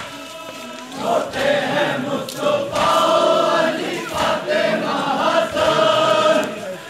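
Crowd of men chanting together in long, held notes: a Muharram-style mourning chant (noha) sung in unison by a procession's mourners, with general crowd noise beneath.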